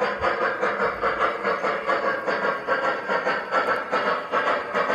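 Large-scale model of the Union Pacific Big Boy steam locomotive No. 4014 running and chuffing in a steady rhythm, about three chuffs a second, with a hiss of steam.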